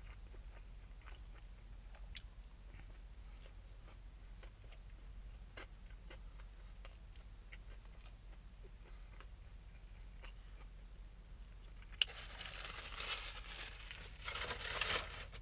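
Person eating a fried chicken sandwich: faint chewing with small mouth clicks, then about twelve seconds in a louder crunching bite into the crispy fried breading that lasts a few seconds.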